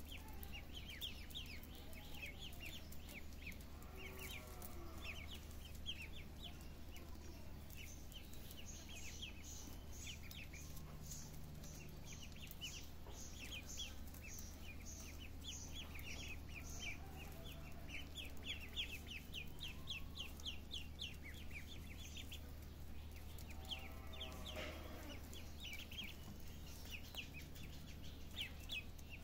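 A brood of ducklings peeping: many quick, high chirps in rapid runs, over a steady low hum. A lower call sounds twice, about four seconds in and near the end.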